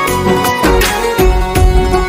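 Instrumental interlude of a Hindi devotional song: a sustained melody over a steady beat of about two strokes a second, with heavy bass.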